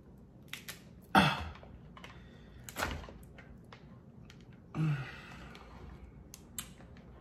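Boiled lobster shell cracking and snapping as a claw is wrenched off by hand: a loud crack about a second in, another just before three seconds, and a few light clicks of shell later on. There are also a couple of short grunts of effort.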